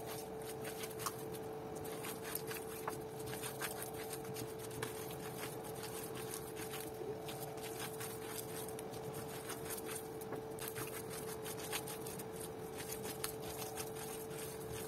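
Hands squeezing and rubbing crumbly tapioca dough in a metal bowl: faint, irregular crackling and rustling, over a steady hum.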